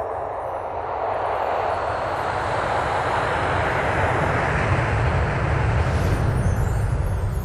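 A swelling whoosh of noise with a deep rumble underneath, growing steadily louder: a sound-design riser building toward a hit in an animated logo intro.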